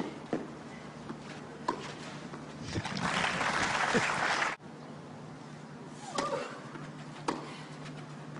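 Tennis racquets striking the ball in a rally, a few sharp pops, then crowd applause from about three seconds in that cuts off abruptly after a second and a half. A few scattered ball bounces follow.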